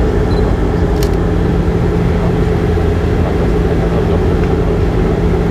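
Steady drone of a Bombardier Q400's Pratt & Whitney PW150A turboprop and six-blade propeller, heard inside the passenger cabin as a constant hum over a deep rumble. A short click about a second in.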